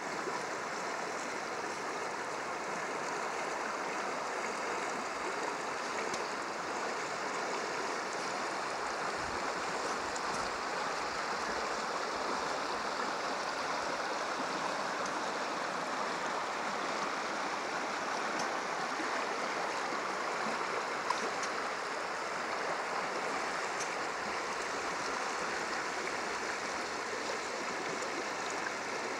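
Shallow creek water rippling and rushing steadily over gravel and sand.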